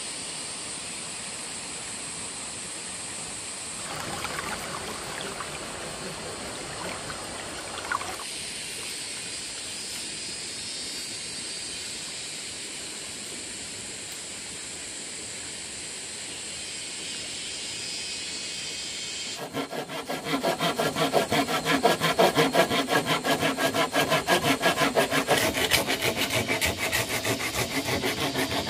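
Hand saw cutting through a green bamboo pole in fast back-and-forth strokes, starting about two-thirds of the way in and louder than anything before it. Before it there is only a steady high hiss.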